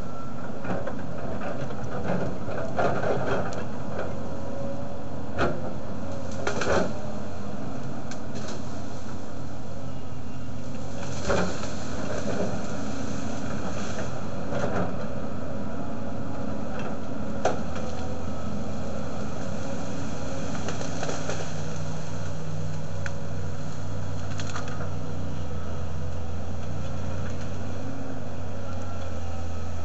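Volvo crawler excavator's diesel engine running steadily as the machine works, with scattered sharp cracks and knocks of wood snapping and the bucket striking trees and brush. In the second half the engine's low note grows stronger and steadier.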